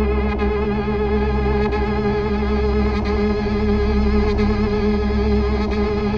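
Synthesized futuristic sci-fi drone: several held tones sound together, with a fast wavering shimmer in the upper tones and a low hum beneath, steady and unchanging.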